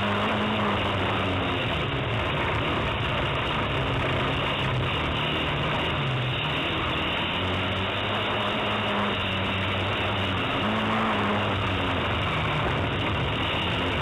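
Autocross race car's engine heard from inside the cockpit, its pitch rising and falling again and again with throttle and gear changes, over a steady rushing noise.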